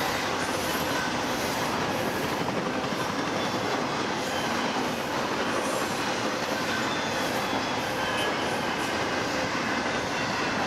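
Double-stack intermodal freight cars rolling past: a steady rumble and hiss of steel wheels on rail, with a few faint, steady high squeal tones from the wheels.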